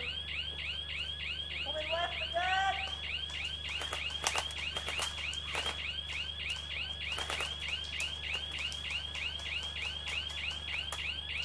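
Electronic alarm sounding continuously, a high tone that sweeps down fast and repeats several times a second, with a few sharp clicks in the middle.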